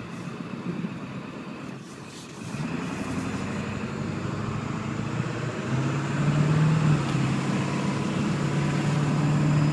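1996 Ford F-250's straight-piped 7.3-litre Power Stroke turbo-diesel V8, heard from inside the cab as the truck gets under way and picks up speed. The engine note grows louder about two and a half seconds in and again about six seconds in.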